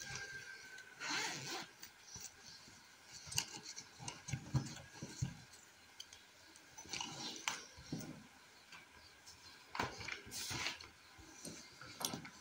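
Rummaging in a fabric zip pencil case on a desk: scattered rustles, scrapes and light clicks as pens are handled and a notebook is put down.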